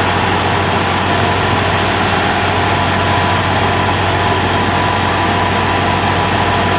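Kubota DC70 combine harvester's diesel engine running steadily, with an even, unchanging drone.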